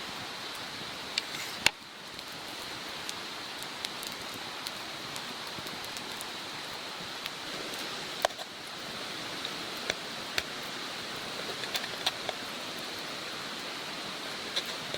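Wood fire crackling: a steady hiss with irregular sharp pops and snaps, the loudest about two seconds in.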